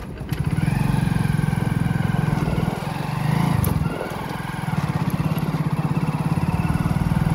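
Motorcycle engine running under way as the bike rides off. The engine note eases briefly around four seconds in, then picks up again.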